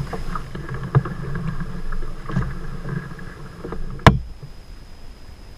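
Canoe paddle strokes through muddy, shallow water, with small splashes and knocks. About four seconds in comes a single sharp knock, the loudest sound here, after which it gets quieter.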